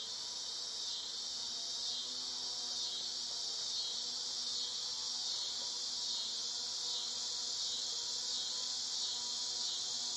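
A steady, high-pitched insect chorus, with the low, wavering hum of a honeybee swarm beneath it.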